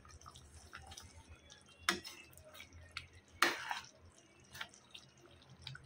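Thick curry gravy being stirred with a wooden spatula in a kadhai: faint wet squelches and small ticks, with two sharper clicks about two seconds and three and a half seconds in.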